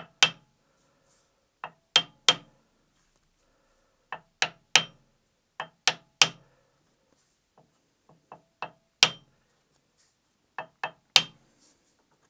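Small copper mallet tapping a steel shaft held in a lathe chuck: about twenty sharp, ringing metallic knocks, singly and in quick runs of two or three, with short pauses between. The shaft is being knocked true in the chuck jaws to bring its runout down.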